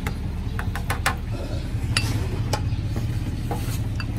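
Steel ladle clinking against a large steel pot and a ceramic bowl as broth is scooped and poured, several sharp clinks, over a steady low rumble.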